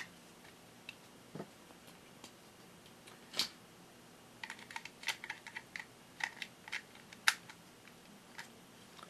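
Hard plastic toy parts clicking and clacking as a folding zord figure is handled and its parts are moved: a few separate light clicks, then a quick irregular run of them in the middle seconds.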